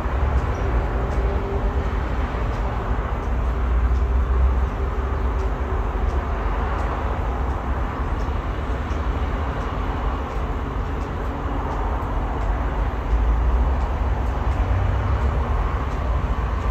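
Strong wind buffeting the microphone in gusts, a low rumble that swells and eases, over a steady hum of distant city traffic.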